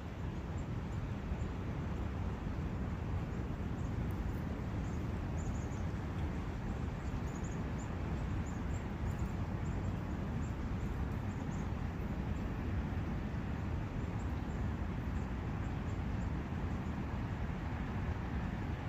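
Forest ambience: a steady rush of wind and brook water, heaviest in the low range, with faint high chirps of small birds scattered through it.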